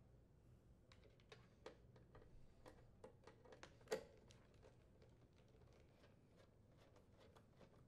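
Faint clicks and taps of a screwdriver driving screws into a dishwasher's sheet-metal control panel support, with one louder click about four seconds in.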